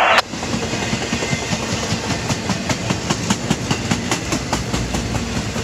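Intermodal freight cars rolling slowly past, their wheels clicking over rail joints in an irregular clatter over a steady rumble. A loud rush of noise cuts off right at the start.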